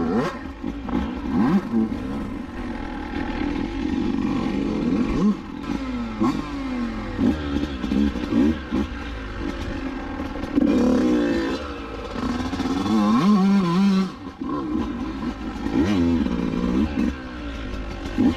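Dirt bike engine revving up and down over and over as it is ridden through rough, muddy ground.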